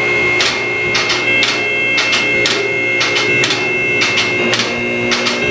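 Background music with a steady beat of about two strokes a second over held tones.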